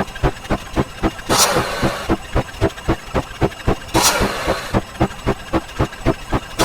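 Edited counting sound effects: rapid, evenly spaced thumps at about four a second, with a hissing crash-like burst twice, about 1.4 s and 4 s in.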